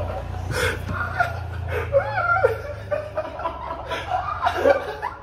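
Laughter in short broken bursts, over a steady low hum.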